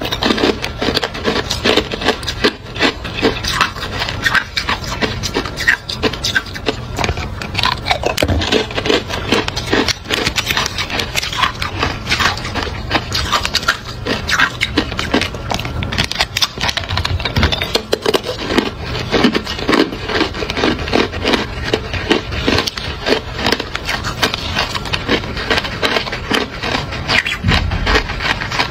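Hard clear ice being bitten and crunched off a sheet of cubes frozen in a plastic ice-cube bag, a dense, continuous run of sharp cracks and crunches.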